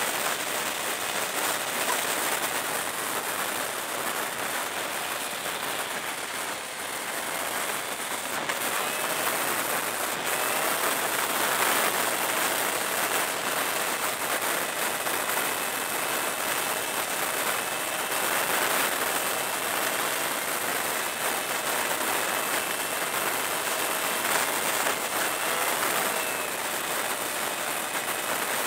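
Steady rush of wind over a helmet-mounted camera on a motorcycle at expressway speed, with the faint whine of the Kawasaki ER-6n's parallel-twin engine rising and falling a few times.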